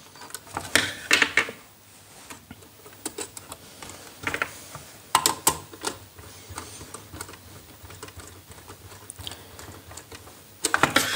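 Scattered small clicks and scrapes from a screwdriver working the brass terminal screws of a plastic modular switch board while a wire is fitted, with a cluster of louder clicks near the end.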